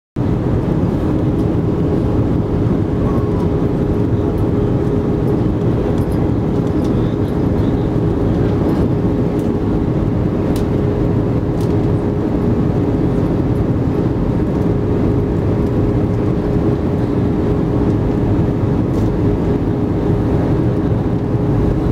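Steady cabin noise inside an Airbus A320 descending to land: the low roar of the engines and airflow heard from a seat over the wing, with a constant hum running through it.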